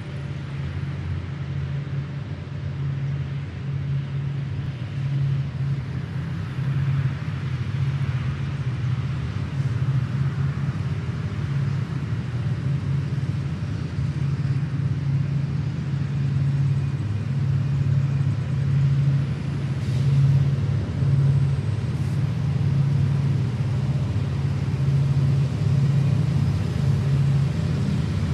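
Diesel locomotives of an approaching freight train running with a steady low engine drone that grows gradually louder as the train draws near.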